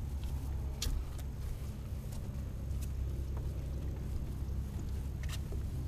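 Steady low rumble of wind buffeting the camera microphone, with two brief high sounds, one about a second in and one near the end.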